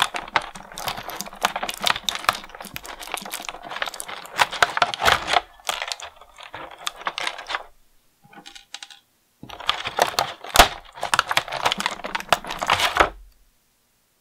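Rapid clicking and crinkling of a clear plastic bag and small plastic action-figure accessories being handled and set down on a tabletop. The clicks come in two dense runs with a lull a little past the middle, one sharper click about two-thirds in, and it goes quiet near the end.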